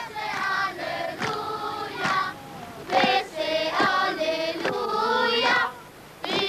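A choir of voices singing a hymn in phrases of held notes with short breaks between them, stopping shortly before the end.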